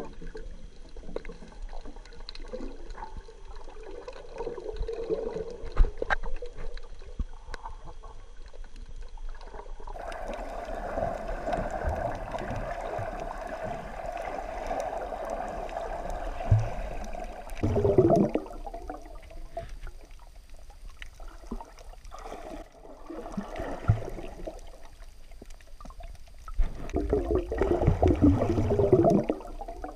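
Muffled underwater water noise picked up by a camera held under the sea, with gurgling swells of sloshing and bubbles, one about midway and a longer one near the end.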